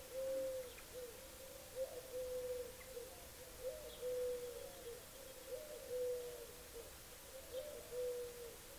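A bird calling with a low, repeated phrase: a few short notes followed by a longer held note that drops slightly at its end, about every two seconds, five times.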